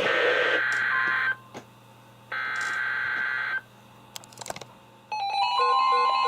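NOAA Weather Radio SAME header data bursts: a harsh digital buzzing that ends about a second in, then a second identical burst lasting just over a second, heralding a new warning. A few clicks follow, and about five seconds in the weather alert radios start their alarm: a steady tone with rapid electronic beeps at several pitches.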